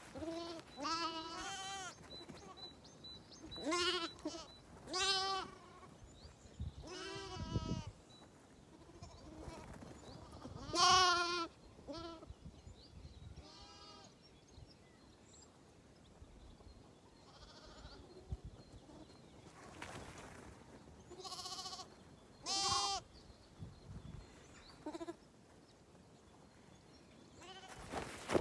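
Zwartbles lambs bleating: about a dozen wavering calls at irregular intervals, some close together, with a lull in the middle and the loudest call about eleven seconds in.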